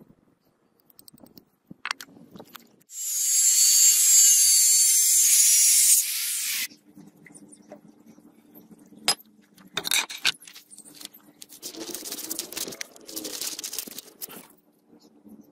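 Workshop handling and tool sounds: a rusted steel ball bearing clinks in the hands, then a high-pitched power tool whines against metal for about three seconds, the loudest sound. Near the end come short scrapes and snips of scissors cutting a paper template.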